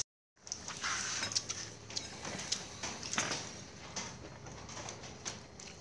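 Light clinks and taps of spoons and fingers on ceramic plates and bowls during a meal, scattered every half second to a second, over a steady faint high hiss. A brief dropout opens the sound.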